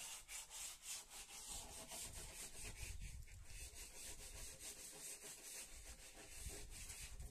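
Faint, quick, even strokes of hand-sanding on wood, several a second, with a low rumble joining from about two seconds in.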